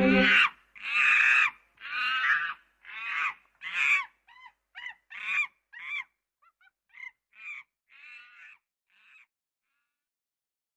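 A series of about a dozen separate bird calls following the end of the music, each a short pitched call, growing fainter and spacing out until they stop near the end.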